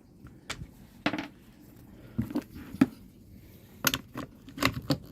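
Irregular light clicks and knocks of hard plastic and metal parts being handled as a new recoil starter assembly is test-fitted onto an Echo GT-225 string trimmer's engine, with several quick clicks close together near the end.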